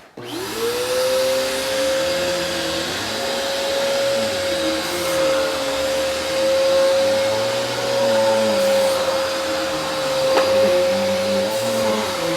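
Vacuum cleaner switched on, its motor spinning up to a steady whine within about a second and then running steadily, with lower tones wavering underneath.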